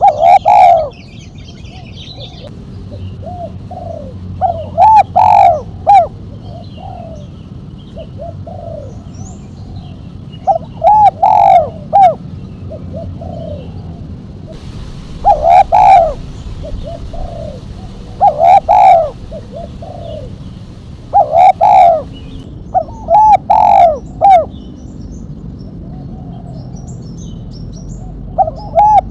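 Spotted dove (tekukur) cooing its song phrase over and over, a loud group of low notes about every three seconds, in the sharp 'mercik' style with a single 'kuk' ending. Faint chirps of small birds sound behind it.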